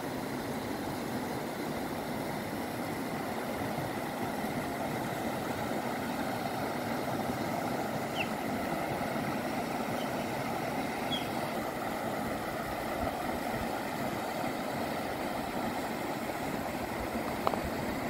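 Shallow mountain river rushing over a stony bed: a steady rushing of water, with a couple of faint short high chirps around the middle.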